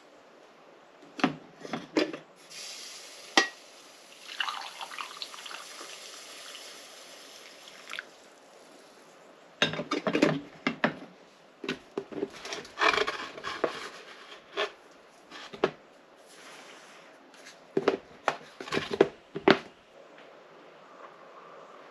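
Coffee from a drip coffee maker running into a ceramic mug for several seconds, then knocks and clinks as the mug and the glass carafe are handled and set down.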